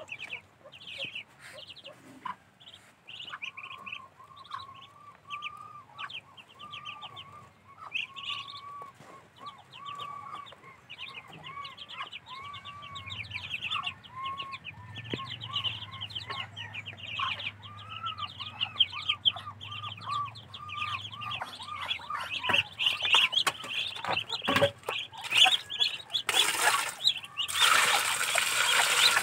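Ducklings peeping rapidly and continuously, the chorus growing louder, with a lower repeated call from another bird through the middle. Near the end a loud rushing noise rises over the peeps for a few seconds.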